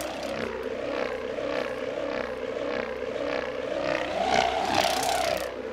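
Wind wand whirled in circles, its large rubber band, stretched on a wooden bow-shaped frame and tightened a little, vibrating in an aircraft-like hum that pulses with each swing. The pitch sags, rises about four seconds in, and falls again near the end.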